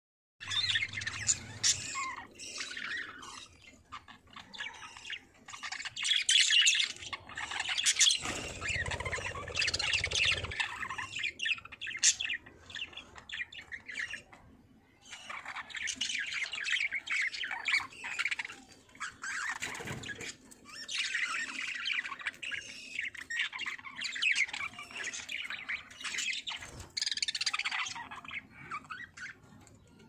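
Several budgerigars chirping, warbling and squawking at once in a busy, overlapping chatter, with a short lull about halfway through. A low rumble runs underneath for a couple of seconds about a third of the way in.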